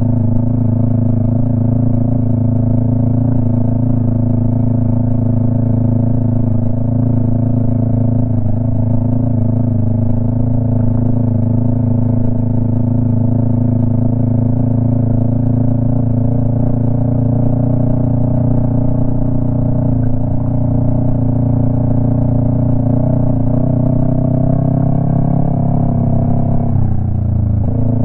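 Yamaha MT-03 running through a Jeskap aftermarket exhaust with the dB killer removed, pulling at a steady pace. Its note climbs slightly toward the end, then drops briefly and picks up again.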